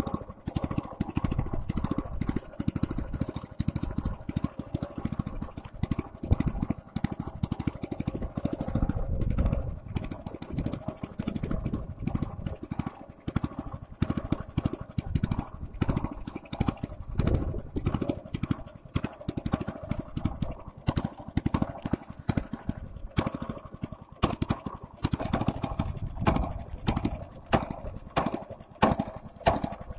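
A small boat's petrol outboard motor running steadily.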